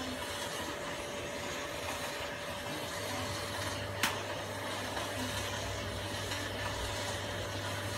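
Steady background hiss with a faint steady hum; a deeper hum joins about three seconds in, and there is one sharp click about four seconds in.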